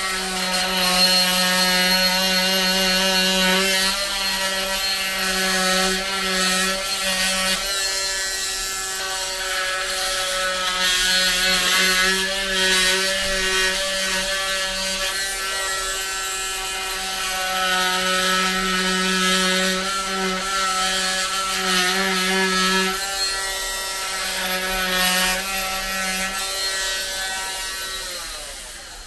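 Electric oscillating cast saw running in a steady buzz while cutting open the cast on a broken forearm.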